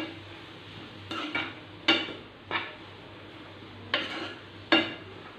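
Plastic spatula stirring shredded vegetables in a non-stick frying pan, knocking and scraping against the pan about seven times at uneven intervals.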